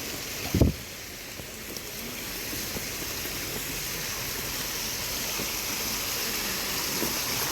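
Steady rush of a mountain stream and falling water, growing gradually louder, with a single brief low thump less than a second in.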